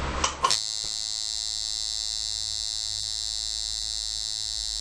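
Coil tattoo machine switching on about half a second in and buzzing steadily, its armature bar cycling about 108 times a second on 5 volts. It is running at a duty cycle of about 45%, spending slightly more time down than up.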